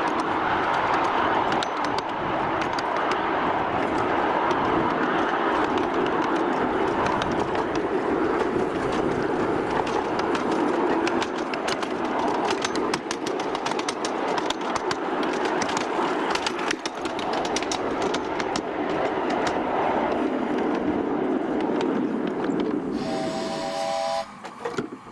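Miniature live-steam locomotive train under way: steady running and steam noise with frequent sharp clicks of wheels over the track. A brief pitched tone sounds near the end.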